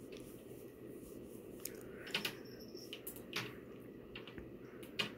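A cat clawing and biting at a feather boa toy: scattered short clicks and scratches, the loudest about two seconds in and near the end, over a steady low hum.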